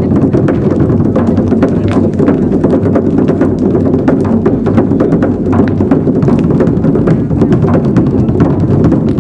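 Drumming: a fast, dense run of drum hits keeping a steady pulse.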